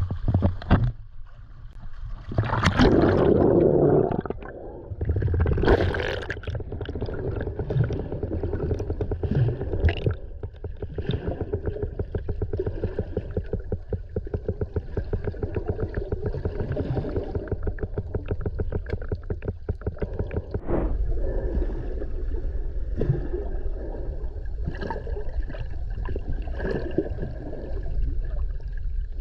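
Underwater sound picked up by a submerged camera: a low rumble with gurgling bubbles, loudest in surges a few seconds in, and a rapid, even pulsing through the middle.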